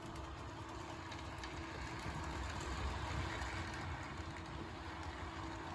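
HO-scale model train running along the layout's track: a steady rolling rumble with a constant low hum.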